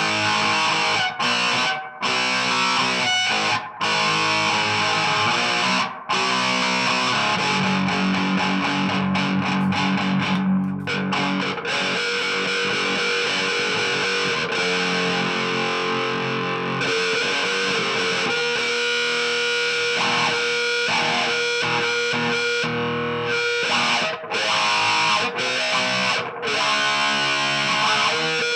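Distorted electric guitar played through a Marshall Origin 20 valve head and a 2x12 cabinet: chords cut off sharply a few times in the first six seconds, then longer held notes and chords ring out.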